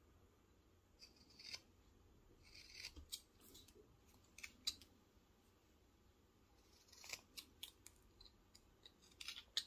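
Small carving knife slicing thin chips off a wooden doll blank: faint, short crisp cuts in little clusters with quiet pauses between.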